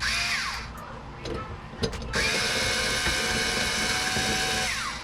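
Power drill running: a short burst that winds down with a falling whine at the start, then a steady run of nearly three seconds from about two seconds in, winding down again near the end.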